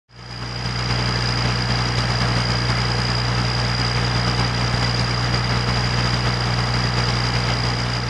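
Heavy engine-driven road-construction machinery running steadily: a deep, even hum with a thin high whine held above it, fading in over the first half second.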